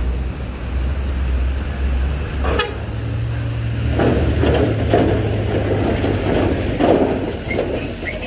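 A medium tour bus drives slowly off a ferry's steel-grating ramp with its engine humming steadily. There is a sharp knock about two and a half seconds in. From about four seconds in, the wheels rattle and clank over the steel grating as the bus passes close by.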